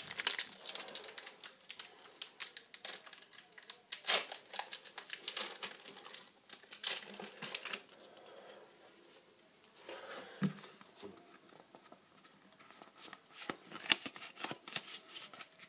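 Foil Pokémon TCG booster pack wrapper being torn open and crinkled, in bursts of sharp crackles with quieter stretches in between.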